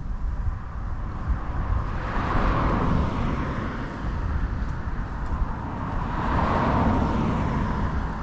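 Two vehicles passing one after the other, each a smooth rush of tyre and engine noise that swells and fades, the first loudest about two and a half seconds in and the second just before the end, over a steady low rumble.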